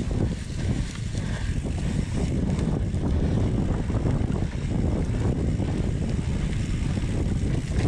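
Wind rushing over a bike-mounted camera's microphone, mixed with the rumble and rattle of a downhill mountain bike rolling over a rough dirt trail: a steady low roar broken by many small knocks.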